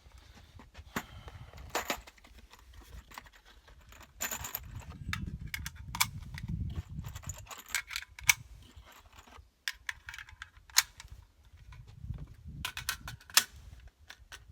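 Rifle cartridges and magazine being handled: a run of small metallic clicks and rustling, with three sharper snaps about 8, 11 and 13 seconds in.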